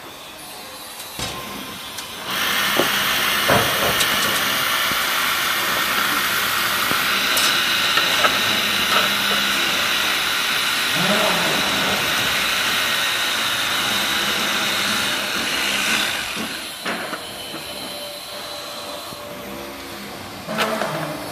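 Angle grinder with a cutting disc cutting steel rebar: a loud, steady hissing whine that starts about two seconds in, holds for some fourteen seconds, then stops.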